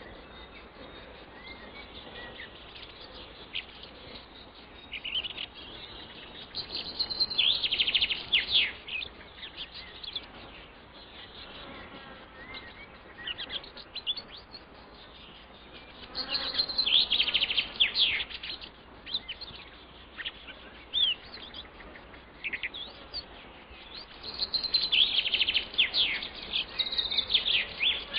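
Birds chirping in flurries of rapid high chirps, loudest about seven, sixteen and twenty-five seconds in, over a faint steady hiss.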